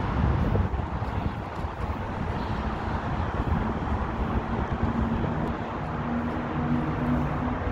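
Outdoor street ambience: passing road traffic and wind rumbling on a phone's microphone. A low engine hum joins about five seconds in.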